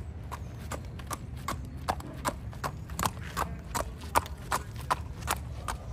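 Thoroughbred horse trotting in hand on pavement: crisp, even hoofbeats at about three a second.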